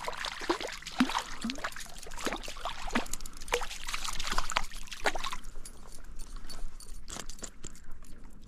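Water splashing and dripping as a small brown trout is brought in and handled, busiest for the first five seconds and then thinning to a few scattered splashes.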